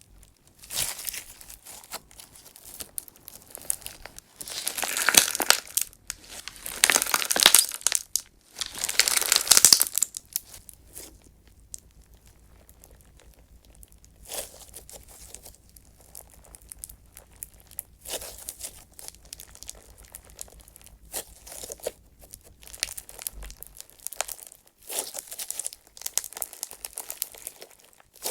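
Clear slime packed with small clay chips being squeezed and kneaded by hand: crackling air-bubble pops mixed with the gritty grinding of the chips. Three long, loud squeezes come in the first ten seconds, followed by quieter, shorter bursts.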